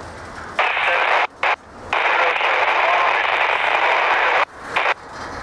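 Railroad two-way radio transmission on a scanner: a loud burst of hissy, narrow-band radio static with a faint garbled voice, keying on about half a second in, breaking up twice, and cutting off near the end.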